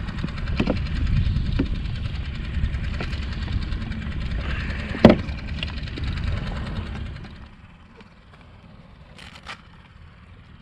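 Low, even rumble of wind buffeting the microphone out on open water, with a few sharp handling knocks, the loudest about five seconds in. The rumble drops away after about seven seconds, leaving a much quieter background.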